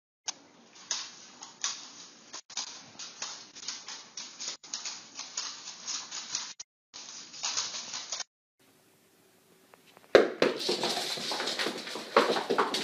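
Dog's claws clicking and scrabbling on a hardwood floor in quick, irregular taps as it braces and tugs on a toy. After a brief quiet gap, a louder, busier jumble of sound starts near the end.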